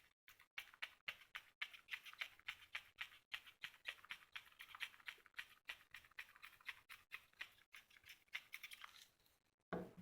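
Quiet, rapid scratching and clicking of a small metal hand tool working at a phone motherboard, several strokes a second, stopping just before the end.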